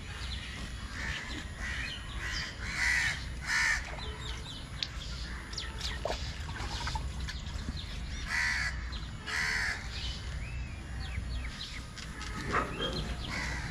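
Crows cawing: harsh calls, loudest as two pairs about three seconds in and again about eight and a half seconds in, with fainter caws between.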